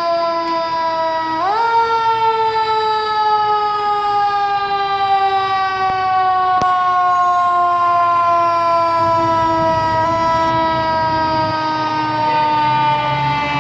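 Fire engine siren wailing: it climbs quickly about a second and a half in, then slides slowly down in pitch over the following seconds. The truck's engine rumbles underneath near the end as it pulls out.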